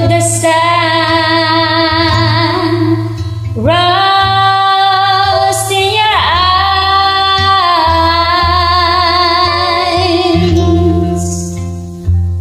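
A woman singing a slow ballad over a soft backing track, holding two long drawn-out notes with vibrato. The second note fades away near the end.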